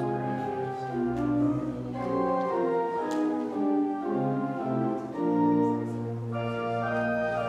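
Organ playing slow music in sustained chords, the notes changing every second or so over long-held bass notes.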